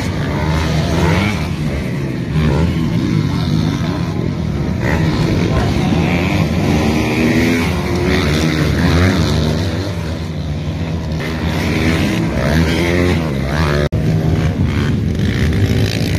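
Motocross motorcycle engines revving up and down as the bikes race over the track's jumps, several engines overlapping with rising and falling pitch.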